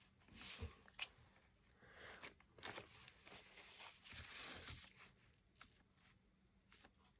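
Faint soft rustling and brushing on paper, a handful of short swishes in the first five seconds, as watercolour work goes on.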